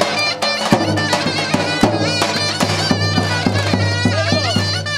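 Davul-zurna folk music: a zurna (shawm) plays a shrill, ornamented melody over a steady beat on a large davul bass drum.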